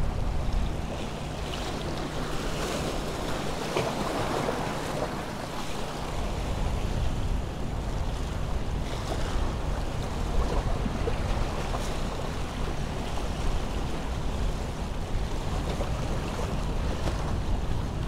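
Gulf surf washing against the granite rocks of a jetty, a steady rush of water with small swells breaking, over a steady low hum.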